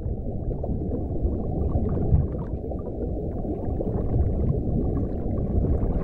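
Muffled underwater ambience: a steady low rumble of water with nothing bright or high in it.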